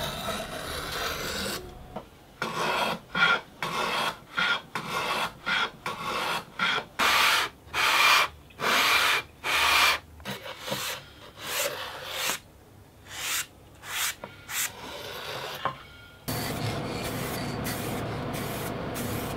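Hand work on bamboo plywood: a run of about twenty short scraping strokes, each a second or less, as a small block plane and then hand rubbing shave and smooth the board's edges. A little after sixteen seconds this gives way to the steady hiss of an aerosol spray can.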